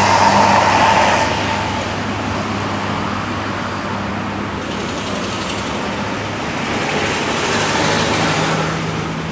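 Road traffic on a toll road: heavy vehicles pass with engine drone and tyre noise, swelling at the start and again about eight seconds in.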